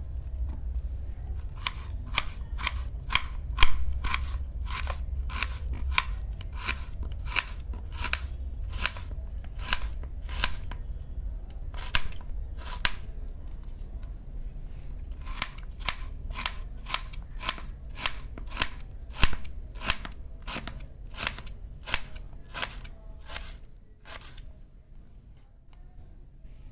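Knife slicing an onion on a chopping board, a sharp tap of the blade on the board with each cut, about two to three cuts a second. The cutting pauses briefly midway and stops near the end.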